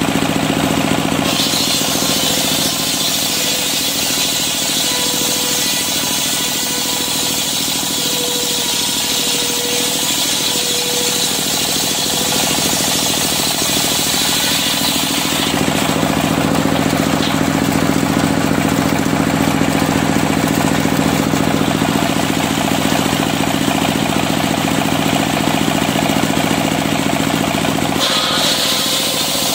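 Engine-driven circular sawmill blade ripping a log of African wood (kayu afrika) into boards, the engine running steadily under load. The sound shifts in character about a second in, around halfway, and again near the end.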